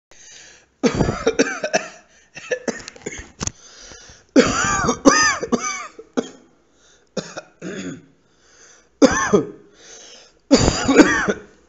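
A person coughing in repeated fits, with some throat clearing: short, harsh, voiced coughs in bunches of two to four, with brief pauses between the fits.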